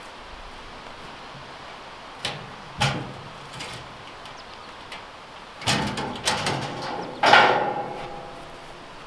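Knocks and clanks of a sheet-metal poultry scalder being set down and its hinged lid and cord handled, starting about two seconds in. The loudest is a ringing metal clang about seven seconds in.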